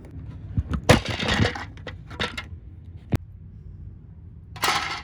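Hard plastic vacuum-cleaner parts knocking and clattering as they are handled and pried apart, with short rattly bursts about a second in and near the end, and a sharp single click about three seconds in.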